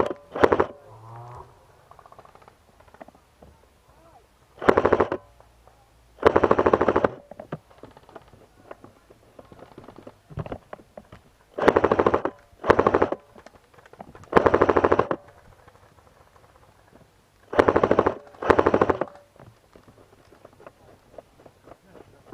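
Airsoft guns firing short full-auto bursts, a rapid rattle of shots. There are about eight bursts, each under a second long, spread through the stretch, with faint clicks and rustle in the gaps.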